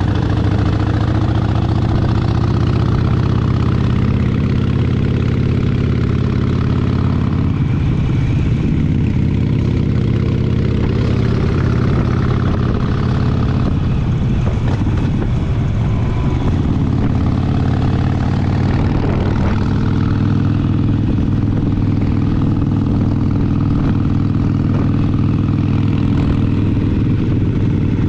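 Harley-Davidson Sportster 72's air-cooled 1200 cc V-twin running steadily at low revs, its pitch easing slightly in the first few seconds.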